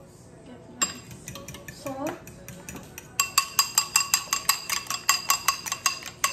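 Fork beating eggs in a metal bowl: a few light clinks at first, then from about three seconds in fast, even clinking of the tines against the bowl, about five a second, each strike leaving the bowl ringing briefly.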